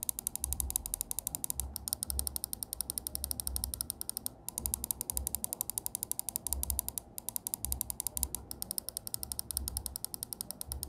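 Onikuma CW905 wireless gaming mouse buttons being clicked rapidly close to the microphone, several crisp clicks a second in runs separated by brief pauses.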